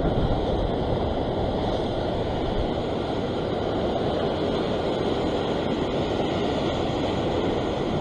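Ocean surf washing and breaking against a rock ledge, a steady rushing noise.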